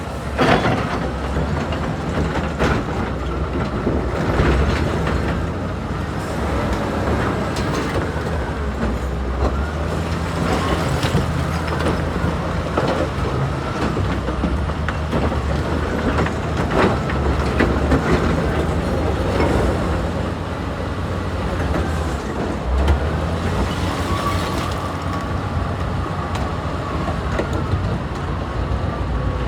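Heavy diesel machinery running steadily, with scattered knocks and clanks and a wavering whine over the low engine hum.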